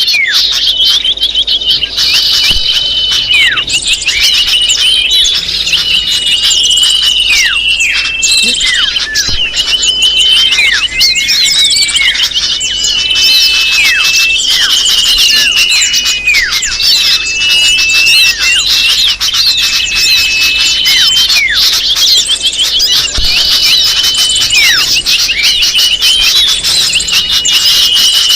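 Loud, dense chattering of small birds, many quick chirps overlapping with short calls that sweep downward in pitch, going on without a break: a bird-luring (pikat) call recording meant to draw other birds in.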